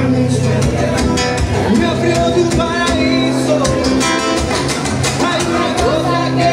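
Acoustic guitar strummed live, a steady run of chords.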